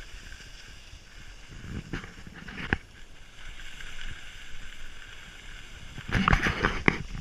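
Skis sliding and scraping over packed snow on a downhill run: a steady hiss, with louder scrapes about two seconds in and a burst of them near the end.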